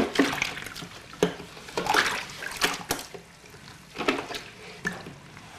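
A stick stirring a sloppy mash of cornmeal, sugar and hot water in a plastic cooler, sloshing and splashing in irregular strokes to dissolve the sugar.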